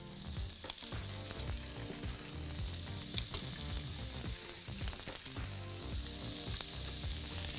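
Ground-beef kofta skewers sizzling as they are laid one by one into hot oil in a nonstick frying pan, with a few light knocks as each skewer is set down.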